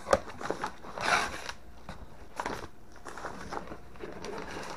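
Padded paper mailers rustling and crinkling as they are handled and lifted out of a cardboard box, with a few light knocks; the loudest rustle comes about a second in.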